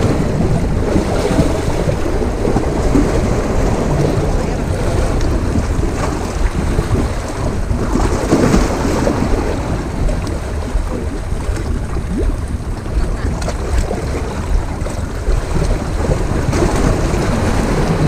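Wind buffeting the microphone over the steady wash of rough sea waves against the rocky shore.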